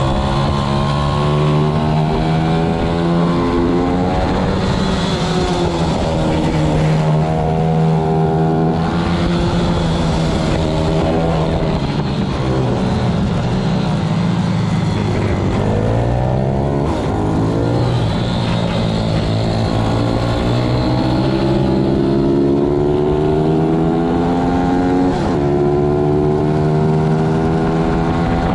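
Pit bike's single-cylinder four-stroke engine being ridden hard on a race track, its pitch climbing through the gears and dropping back sharply several times when braking and shifting down for corners.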